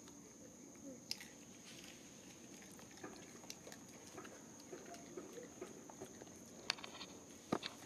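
Faint close-up clicks, taps and scuffling from macaques moving and handling things, with a few soft short chirps in the middle and a sharper pair of clicks near the end. A steady faint high-pitched whine runs underneath.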